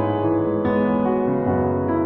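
Slow, sustained keyboard chords, with a new chord struck about two-thirds of a second in and another near the end.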